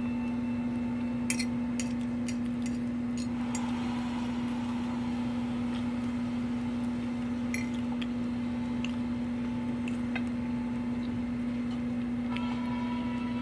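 A steady hum at a single low pitch, with scattered faint clicks; a few higher steady tones join near the end.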